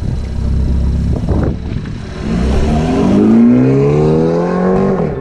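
BMW F30 3 Series sedan engine running low for about two seconds, then accelerating, its note rising steadily in pitch before cutting off abruptly near the end.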